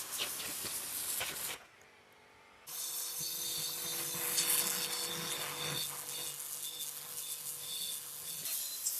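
Steady spray-like hissing from workshop work, in two stretches. The first stops about one and a half seconds in, and after a second of near silence the hiss starts again and runs on.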